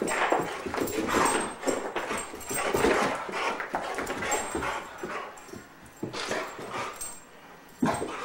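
An excited boxer dog vocalising while it chases a laser dot, in a string of short breathy bursts that ease off for a couple of seconds before a louder burst near the end.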